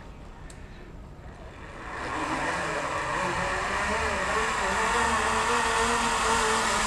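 Zip-line trolley rolling along the steel cable toward the platform, a whirring hum with a wavering pitch that swells about two seconds in and then holds steady.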